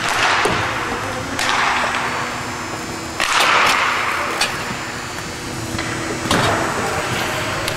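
Hockey skates scraping on the rink surface in three hissing bursts about three seconds apart, with sharp clicks of sticks and puck in between.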